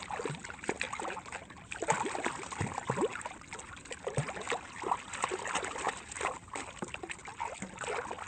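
Water splashing and dripping in a basin as a muddy toy is rinsed and scrubbed by hand: an irregular run of small splashes, drips and bubbly plinks.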